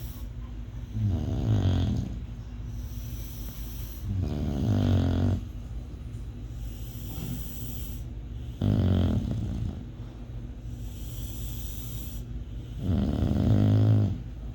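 Bulldog snoring: four loud snores about four seconds apart, each lasting about a second.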